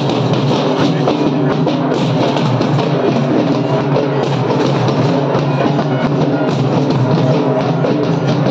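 A troupe of drummers beating large barrel drums with sticks in a fast, steady, continuous rhythm.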